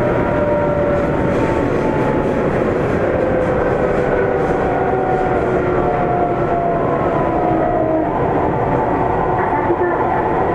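Sendai Subway 1000 series train running in the tunnel, heard from inside the car: the steady rumble of wheels on rail, with the whine of its Mitsubishi IGBT-VVVF traction equipment falling slowly in pitch as the train slows. There is a light knock near the end.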